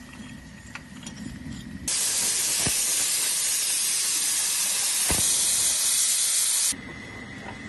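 Steam hissing from the 5-inch gauge Black 5 model steam locomotive as its coal fire raises steam: a loud, even hiss that starts suddenly about two seconds in and cuts off about five seconds later, over a quieter low steady hum.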